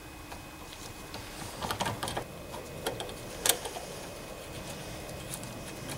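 Small metallic clicks and scrapes of a long, specially made screwdriver turning out the brass nozzle deep inside a Walbro carburetor's aluminium body, with a cluster of clicks about two seconds in and one sharper click about three and a half seconds in.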